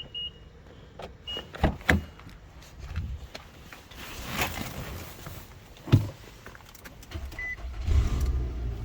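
Short electronic beeps and several sharp clicks and knocks around a car, the loudest a single thump about six seconds in, like a car door shutting. About eight seconds in a steady low hum starts, a vehicle engine starting and idling.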